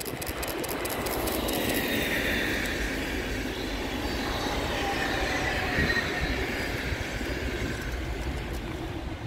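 Electric passenger train, an NS class 186 TRAXX locomotive hauling a rake of coaches, passing at speed. Its wheels click sharply on the rails as the locomotive goes by, then the coaches run past as a steady rush of wheel-on-rail noise with a faint high whine that slowly falls in pitch, easing off near the end.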